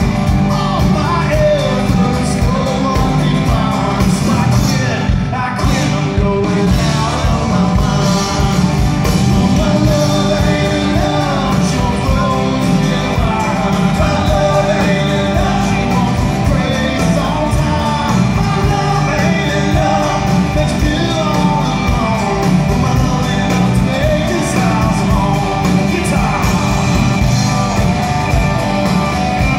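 Live rock band playing with a lead singer, amplified through a PA in a large room.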